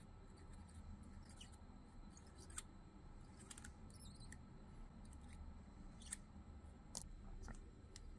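Faint, scattered small clicks and ticks over a low hum as a soldering iron tins the metal tab of a lithium-polymer pouch cell with solder.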